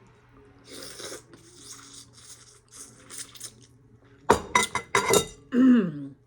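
Eating at a close microphone: about six soft scraping strokes, then a few loud clinks of cutlery on dishware a little over four seconds in, and a brief vocal sound falling in pitch near the end.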